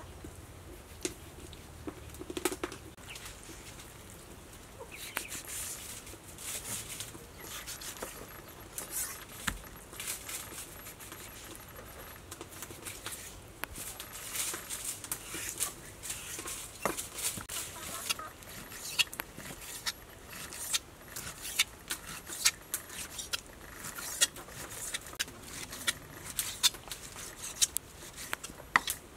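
Kitchen knife slicing raw beef kidney on a round wooden chopping block: irregular sharp taps of the blade striking the wood, coming more often in the second half.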